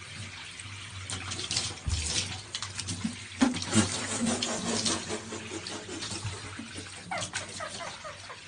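Water running from a bathtub tap in a thin stream and splashing into the tub, with irregular splashes and knocks as a cat clambers on the tap.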